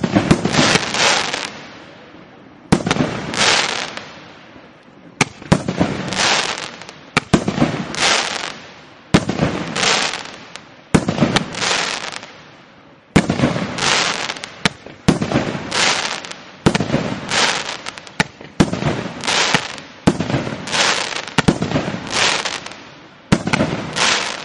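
A 2-inch, 25-shot fireworks cake firing in rapid succession, about one shot every one to two seconds. Each shot is a sharp bang followed by about a second of crackling from the glittering stars.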